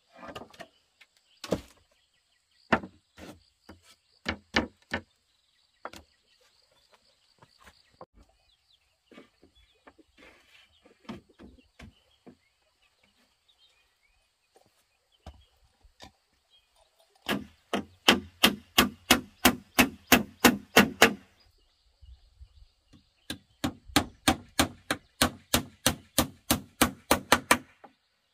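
Chopping with a blade on wood: a few scattered single strokes, then two long runs of quick, even chops about four a second.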